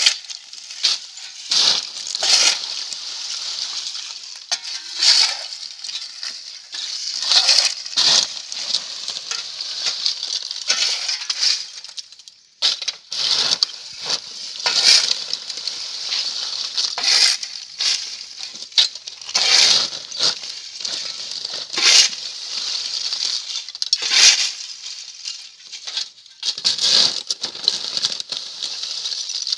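Brittle coconut-shell charcoal clinking and crunching as it is dug out with a shovel and trodden under rubber boots, with a fresh scrape-and-rattle every second or two.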